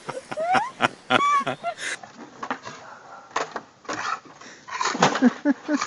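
A wooden stick knocking several times against posts and fence boards as dogs carrying it crosswise try to get through a narrow gap. Short rising vocal exclamations come in the first two seconds, and voice-like sounds, perhaps laughter, come near the end.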